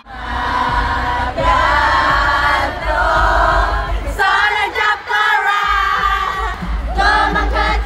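A concert audience singing along together, many voices at once, over the music's low bass from the venue's speakers.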